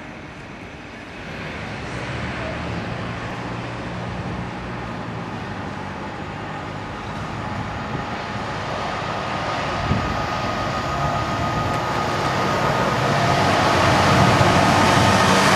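Class 66 diesel-electric locomotive's two-stroke V12 engine running as it approaches at speed, growing steadily louder. A single knock comes about two-thirds through, and a steady high-pitched tone rises with the noise of the passing train near the end.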